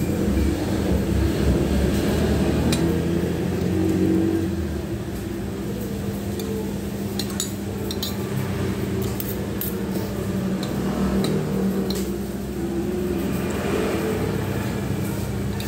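Spoon and fork clinking and scraping against a metal plate of fried rice, with sharp clinks scattered through, over a steady low hum.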